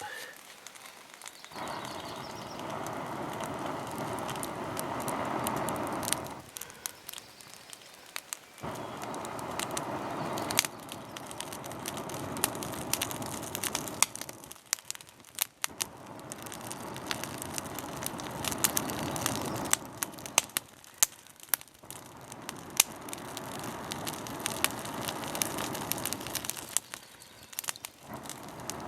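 Campfire of birch bark and twigs crackling with many sharp pops as it catches, over a rushing noise that comes and goes in stretches of several seconds.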